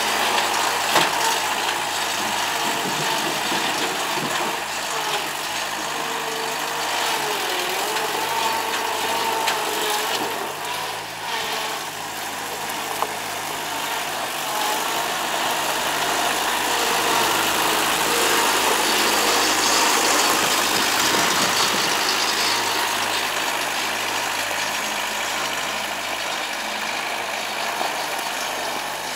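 Thomas 133 skid-steer loader's engine running steadily as the machine drives and works, its engine speed rising and falling for a few seconds. There is a single sharp knock about thirteen seconds in.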